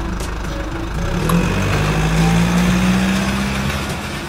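Toy remote-control car driving off across concrete: a steady engine-like hum that swells after about a second and fades as it pulls away.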